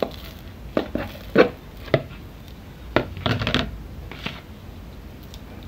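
Rested mandazi dough lifted out of a plastic bowl and handled by hand on a counter: a string of irregular dull knocks and thumps from the bowl and the dough, loudest about a second and a half in.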